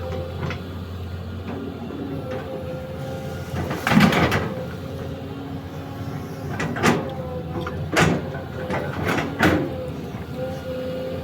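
Excavator engine running steadily with a hydraulic whine, broken by several sharp cracks and knocks, the loudest about four seconds in and three more in the second half.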